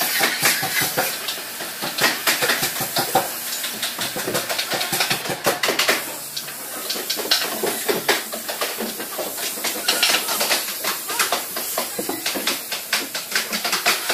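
Compressed-air spray gun hissing as it sprays finish onto wood, with many short clicks and knocks of workshop clatter mixed in.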